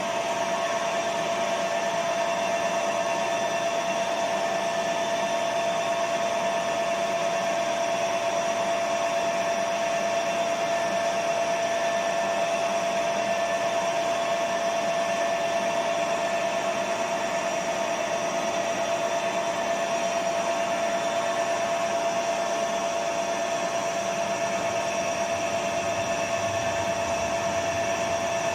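Milling machine running steadily during a drilling set-up, its motor giving a constant whine with an even hiss behind it.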